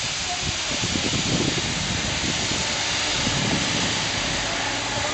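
Steady hiss of abrasive grit blasting on a boat hull, with a low, uneven rumble underneath.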